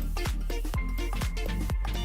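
Electronic dance-style background music with a steady kick drum, about two beats a second, under held synth notes.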